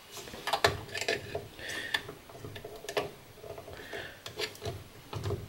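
Irregular plastic clicks, scrapes and rattles as a contactor is worked off its DIN rail: the spring-loaded release clip is held down and the contactor is lifted and slid free.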